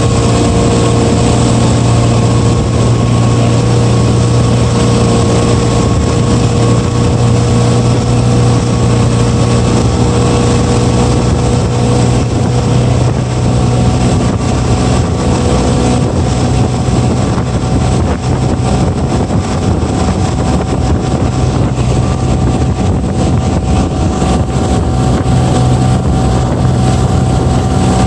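Motorboat engine running steadily at speed while towing, with the rush of the churning wake behind the boat.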